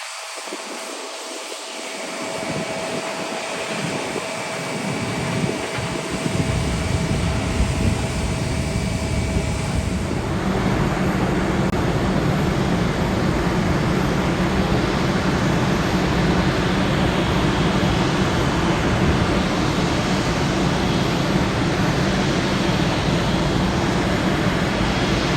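Jet airliner's engines, the noise building over the first few seconds to a loud, steady rumble. A thin whine is heard on top until about halfway through.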